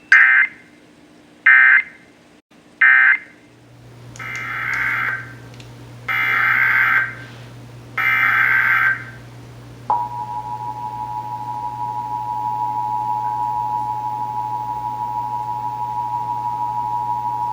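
Emergency Alert System signalling: three short SAME data bursts (the end-of-message code closing one station's test), then three longer SAME header bursts, then the EAS two-tone attention signal (853 and 960 Hz sounding together), held steady for about eight seconds.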